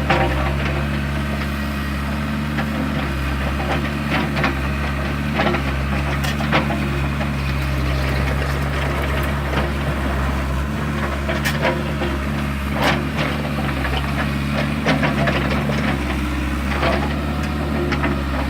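Excavator's diesel engine running steadily, with frequent short clanks and scrapes from the bucket digging into soil and rock.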